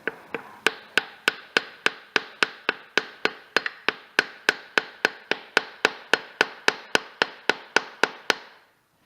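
Hammer tapping steadily, about three taps a second, driving a new torque converter (pump) seal into a Porsche 987 Boxster Tiptronic transmission housing; each tap rings briefly. The tapping stops about a second before the end.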